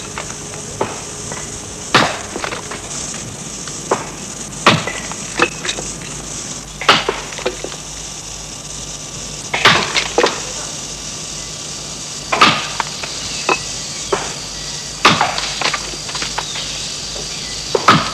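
Axe chopping into a tree trunk: a heavy stroke about every two and a half seconds with lighter knocks between, over a steady high hiss of forest insects.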